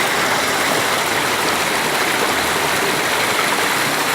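Waterfall running: a loud, steady rush of falling water.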